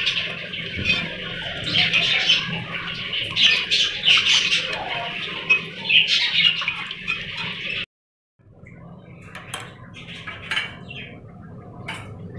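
Small birds chirping and squawking over and over, with a low steady hum underneath. The sound cuts out abruptly about eight seconds in and comes back quieter, with fewer chirps.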